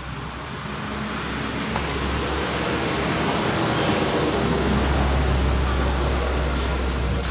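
Motor vehicle noise: a steady low rumble with a hiss, growing louder over the first few seconds and then holding.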